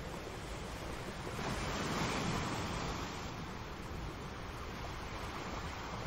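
Sea waves breaking and washing over a rocky shore, a steady surf wash with one wave surging up louder about two seconds in and then falling back.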